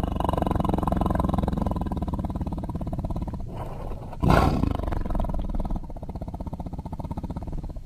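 Tiger growling: a long, rough, pulsing growl fades away. About halfway through, a fresh loud roar breaks in and tails off into another growl.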